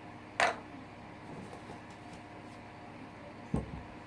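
Small objects being handled on a table: one sharp click about half a second in and a dull thump near the end, over quiet room tone.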